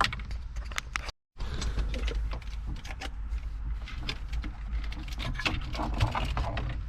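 Plastic wiring-harness connectors being squeezed and pulled off the back of a Volkswagen Passat's radio unit: irregular clicks and rattles of plastic clips and wires over a steady low hum. The sound cuts out briefly about a second in.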